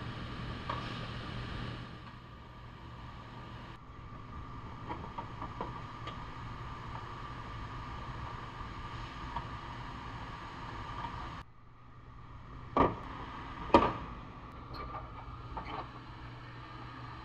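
Rear bumper cover being removed from a car: scattered small clicks over a steady background hum, then two sharp knocks about a second apart after two-thirds of the way in.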